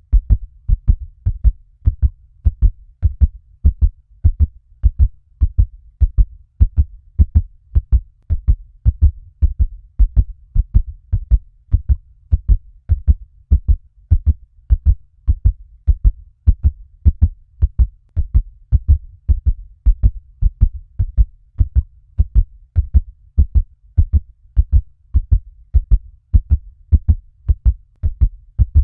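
Fast heartbeat: a steady, even run of low beats repeating at a quick pace without a break.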